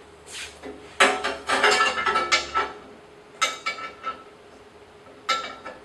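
Metal clanks and rattles from the bandsaw's steel guard and guide fittings being handled, each knock ringing briefly. There is a quick run of knocks about a second in, a single clank near the middle, and another near the end.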